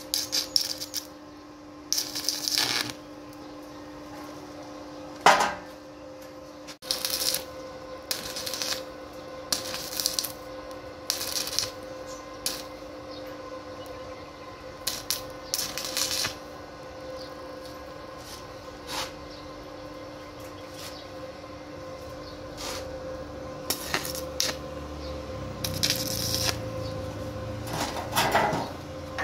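Irregular metallic clinks and knocks, about a dozen spread out, of metal being handled and tapped while working on steel grills, over a steady hum.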